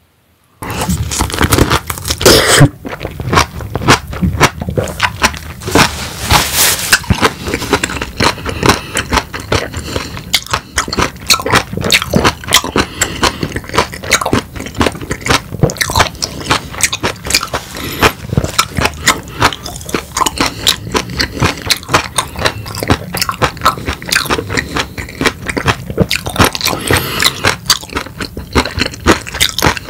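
Close-miked biting and chewing of a whole peeled lemon, starting about half a second in: a continuous run of many small crackling clicks as the fruit is chewed.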